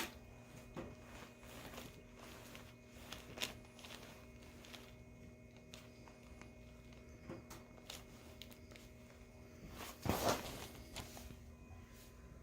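Movement and handling noises during a chiropractic session: scattered small clicks and knocks over a steady low hum, with one louder thump about ten seconds in.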